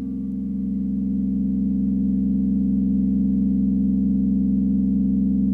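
Music: a sustained low drone of several steady tones held without a break, swelling slightly over the first couple of seconds.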